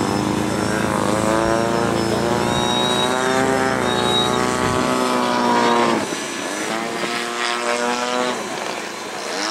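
Radio-controlled model airplane engine and propeller buzzing through low passes, its pitch rising and falling as the model flies by. About six seconds in the sound breaks off abruptly and a second, slightly quieter engine note takes over.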